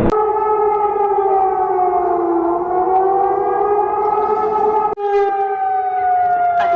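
Civil-defense-style warning siren wailing with a slowly wavering pitch. About five seconds in it cuts off abruptly, and a different siren begins with a long, slowly falling tone.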